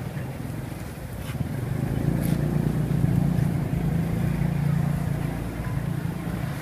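Street traffic, with a motor vehicle engine passing close by: its low hum swells about a second and a half in and fades near the end.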